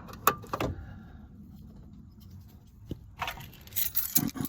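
Plastic clicks and handling as a wiring connector is pushed into a car's keyless-entry receiver box. About three seconds in, a jingling clatter starts, like a bunch of keys being handled.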